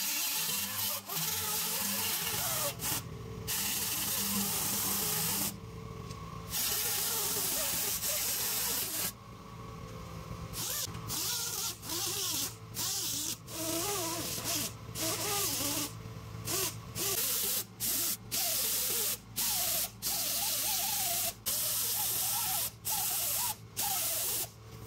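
Pneumatic die grinder with a small abrasive disc, hissing as it runs and grinding around holes in a steel dash panel. It is switched on and off repeatedly, in quick short bursts through the second half.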